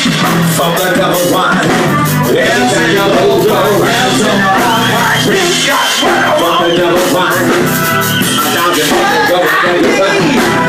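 Live band playing rock music, with electric bass and drums.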